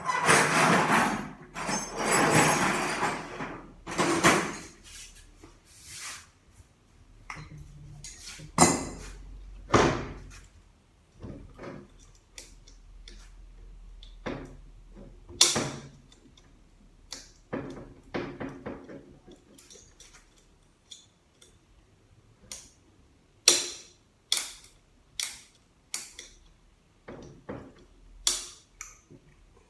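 Metal tools clinking, scraping and knocking against the steel internals of a ZF automatic transmission while prying at a stubborn retaining clip. Two longer scrapes open it, followed by a string of separate sharp clinks, several bunched together near the end.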